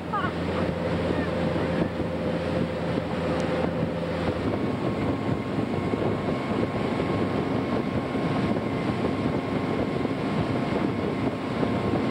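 Motorboat engine running steadily under way while towing, over the rush of its wake and wind buffeting the microphone. The engine note shifts slightly about four and a half seconds in.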